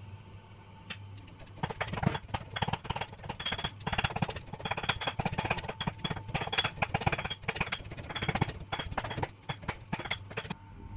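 Rapid, irregular wooden knocks of kitchen food preparation, several a second. They start about one and a half seconds in and stop just before the end.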